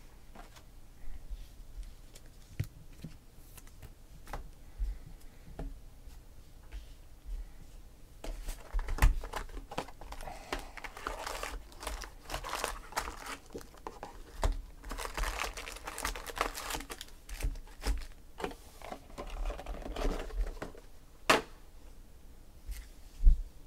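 Foil trading-card packs crinkling as they are pulled out of an opened hobby box and stacked, in two longer rustling stretches in the middle. Scattered taps and clicks of packs and box on the table, the loudest near the end.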